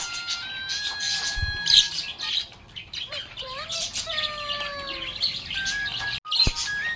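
Budgerigars chirping and chattering in quick, high twitters, over background music with a held, stepping melody. The sound breaks off briefly about six seconds in.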